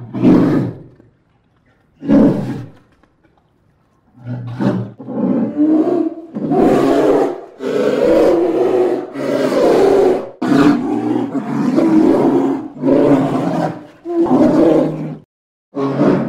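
Polar bear roaring: two short roars a couple of seconds apart, then a run of about nine roars, each about a second long and close together, with a brief break before one more near the end.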